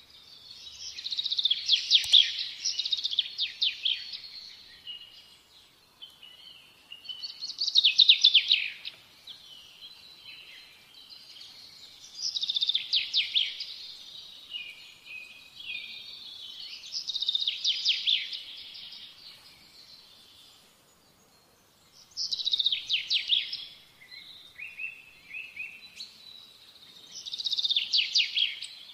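A songbird singing: six high, rapidly trilled phrases, each a second or two long, coming about every five seconds.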